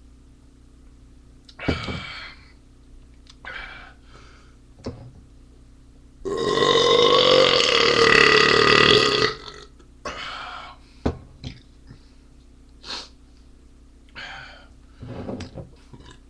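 A man belching while chugging a 40-ounce bottle: one long, loud burp lasting about three seconds midway through, with several shorter sounds before and after.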